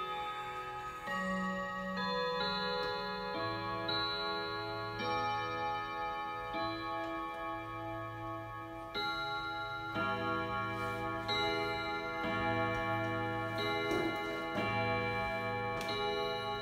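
ODO 62 pendulum wall clock's eleven hammers striking its eleven gongs, playing a slow chiming melody. A new note sounds about once a second, and each rings on under the next.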